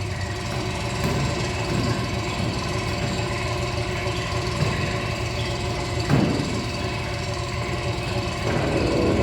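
An indoor percussion ensemble playing, a dense mechanical, tool-like texture of knocks and sustained tones, with a brief swoop about six seconds in.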